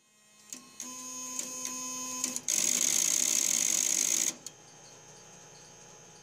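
Automatic Electric mechanical howler in a step-by-step telephone exchange: relays click a few times over a steady hum, then the rotary stepping switch self-steps back to its home position in a loud, fast burst of stepping that lasts just under two seconds. A quieter steady hum with an occasional click follows.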